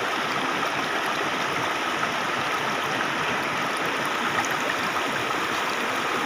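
Steady rushing of a shallow, stony river flowing.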